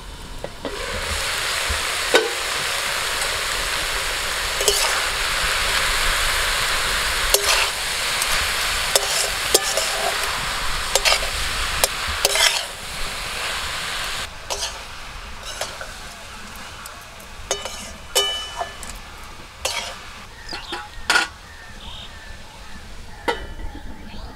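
Cabbage, potato and pea curry sizzling in a metal pan, with a steady hiss that is strongest for the first fourteen seconds or so and then dies down. Sharp clicks and knocks of stirring against the pan recur throughout.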